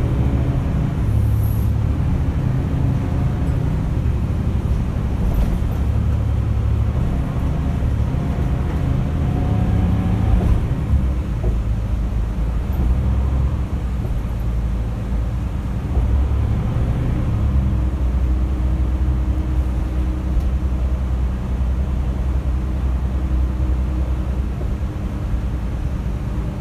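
Mercedes-Benz O405 N² city bus heard from inside the passenger cabin while driving: the diesel engine and ZF automatic gearbox running with a steady low drone, the pitch rising about ten seconds in as it picks up speed. The drivetrain noise carries the sound of a damaged torque converter in the ZF gearbox.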